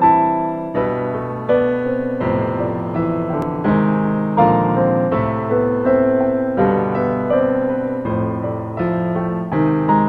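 Background piano music: a slow, steady succession of notes and chords, each struck and left to ring and fade.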